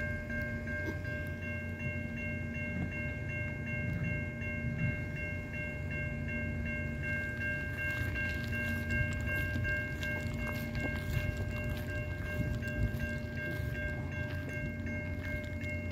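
Passenger train cars rolling past with a steady low rumble and scattered wheel clicks, while electronic grade-crossing bells ring without a break.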